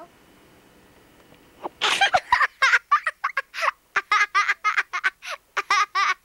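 A young girl giggling in quick, high-pitched bursts, starting a little under two seconds in.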